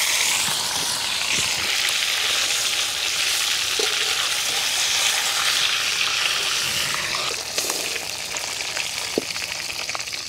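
Whole marinated chicken frying in hot oil in an iron wok, a steady dense sizzle. The sizzle eases a little about seven seconds in, with a few light knocks near the end as the chicken is lifted with a spatula.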